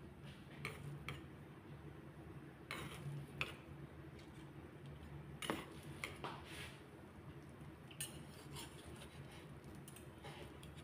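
Metal fork and knife cutting into an omelette, with scattered light clicks and scrapes against a bamboo cutting board, over a faint low hum.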